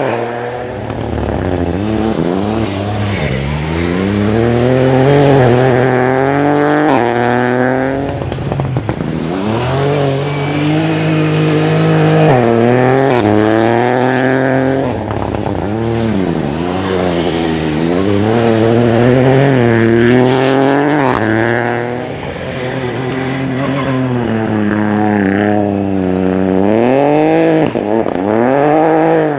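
Rally car engine revving hard: the pitch climbs and then drops sharply, again and again, as it shifts up through the gears and lifts off between flat-out runs.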